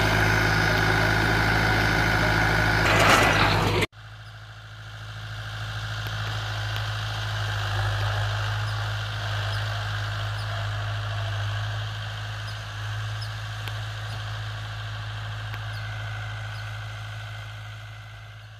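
Force Balwan 500 tractor's 2596 cc four-cylinder direct-injection diesel engine running steadily while working a rotavator. It is close at first, with a steady low hum and a high whine. After a sudden cut about four seconds in it is heard from farther off, quieter, and it fades near the end.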